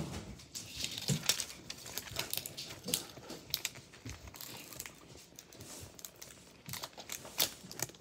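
Clear plastic packaging film crinkling and tearing as it is pulled off a toy box. The crackles are irregular, busy in the first few seconds, thinning out in the middle and picking up again near the end.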